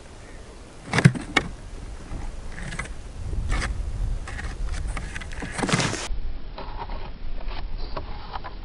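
Handling noise from the angler's clothing and gear close to the microphone: two sharp knocks about a second in, then scattered clicks and rustling over a low rumble.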